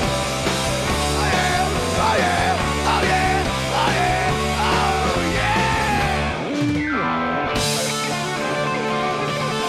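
Rock band playing live: a sung vocal line over electric guitar, organ, bass guitar and drums. About two-thirds of the way through, the bass and drums drop out under a falling pitch slide, leaving mostly electric guitar.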